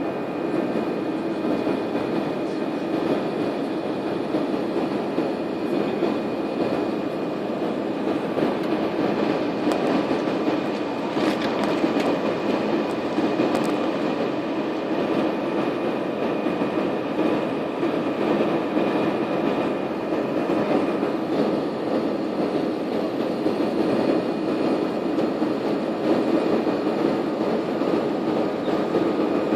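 Airliner cabin noise: the aircraft's engines and airflow make a steady, even drone heard from inside the cabin, with a few faint steady tones above it.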